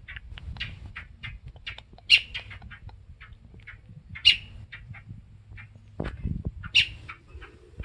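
A fledgling songbird calling loudly with a rapid run of short, high chirps and louder squawks about two, four and seven seconds in, the begging calls of a young bird still fed by its parent. A brief low rumble comes about six seconds in.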